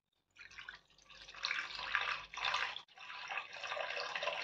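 Water poured from a small stainless steel vessel into a pressure cooker pot holding corn cobs, splashing steadily. It starts about half a second in and breaks off briefly about two-thirds of the way through.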